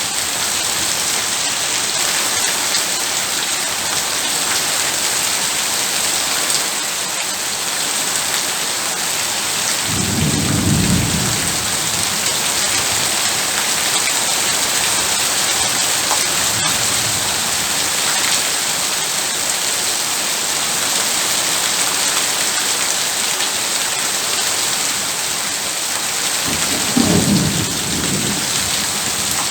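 Heavy rain falling with a steady, even hiss. Thunder rumbles low twice: about ten seconds in, and again near the end.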